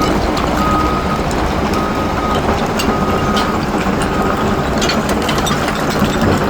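Heavy machine's reversing alarm beeping at an even pace, about one beep a second, over the steady low running of a diesel engine; the beeping stops about four seconds in. A few short clanks sound over the engine.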